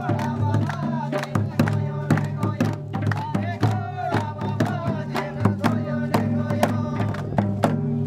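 Tribal folk song: voices singing together over barrel hand drums beating a steady, brisk rhythm.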